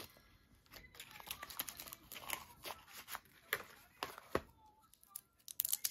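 Clear plastic caramel wrappers and the caramel box crinkling as individually wrapped caramels are handled and unwrapped: irregular sharp crackles that thicken near the end.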